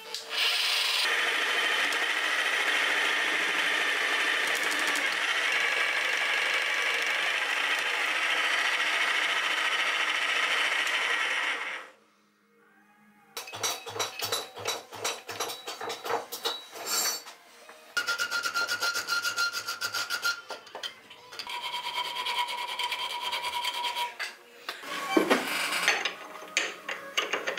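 A jigsaw clamped upside down in a vise, used as a power file on a small steel plate. It runs steadily for about eleven seconds, stops briefly, then runs again in shorter stop-start stretches while the metal is worked.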